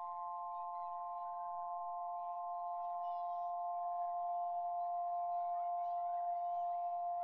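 A steady drone of three or four held pitches that never break, swelling slightly partway through, with faint high chirps and trills scattered above it.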